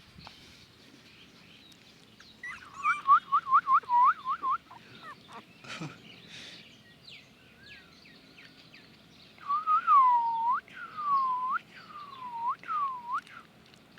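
Newborn puppies whining in high-pitched cries. First comes a quick run of about eight short cries, then near the end four longer cries that dip and then rise in pitch.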